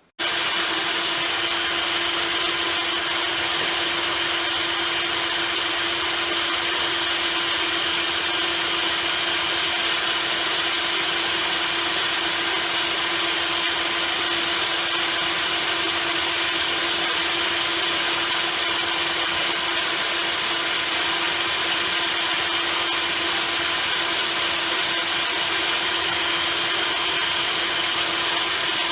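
Small power tool motor switching on abruptly and running at a steady, constant speed: a steady hum with a strong bright hiss.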